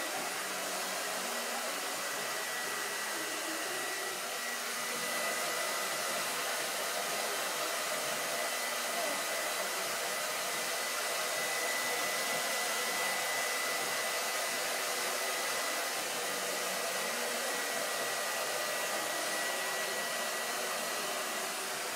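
Hair dryer running steadily: an even blowing hiss with a thin, steady high whine, getting slightly louder about four and a half seconds in.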